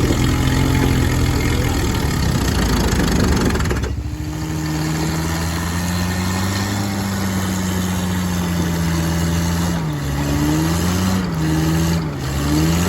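Toyota 4x4 pickup's engine straining and revving as the truck, stuck in a canal, tries to drive out. A rushing noise covers the first few seconds, then the engine holds steady before revving up and down several times near the end.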